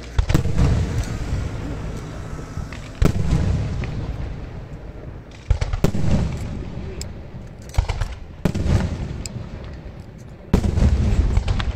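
Aerial firework shells bursting one after another: about seven sharp bangs, two of them close together near the middle, each followed by a rolling rumble that fades over a second or two.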